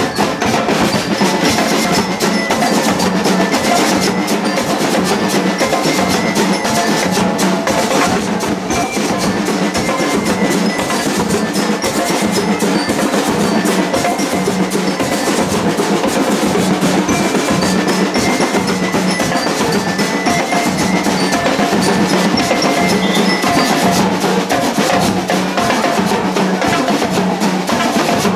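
A marching percussion band playing: snare drums and bass drums beat a dense, steady rhythm while bell lyres ring out short metallic notes over it.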